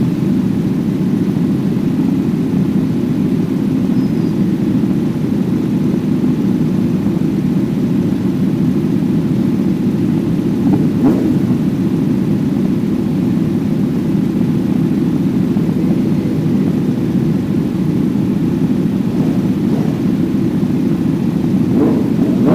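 Onboard sound of a Kawasaki Z900's 948 cc inline-four motorcycle under way, a steady low roar of engine and wind rush on the microphone with no clear rise or fall in revs.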